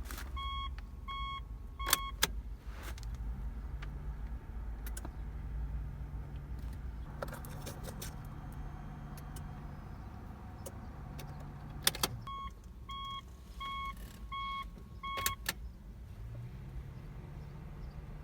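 Vehicle's electronic warning chime beeping about twice a second in two runs, one at the start and one about two-thirds of the way through, with a few sharp clicks near each run.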